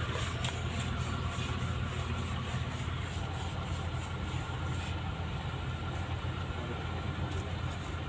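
Diesel engine of a Lonking road roller compactor idling steadily, a low even hum, with a few light ticks in the first second.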